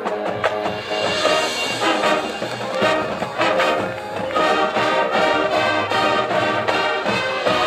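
High school marching band playing live: brass and woodwinds over drums and mallet percussion, getting louder about four seconds in.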